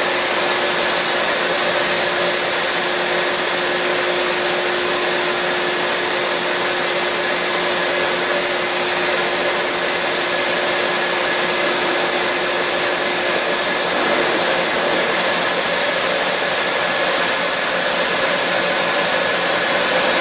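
Steady, loud whooshing hiss with a faint low hum underneath: the ventilation fans and machinery of a car ferry's enclosed vehicle deck.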